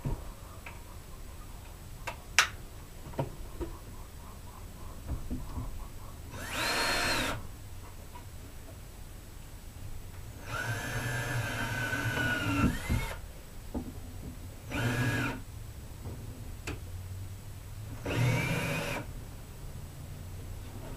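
Ryobi drill driving Phillips screws into wood, running in four short bursts, the second the longest at about two and a half seconds. A few light knocks come between the runs.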